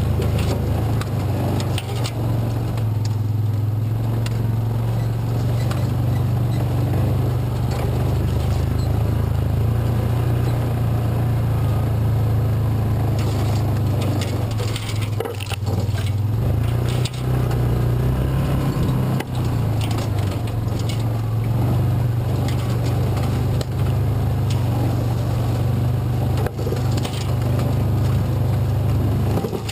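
Engine of a Rhino side-by-side utility vehicle running with a steady low drone as it drives a rough trail, with scattered knocks and scrapes from the vehicle and ground. The engine note wavers briefly about halfway through.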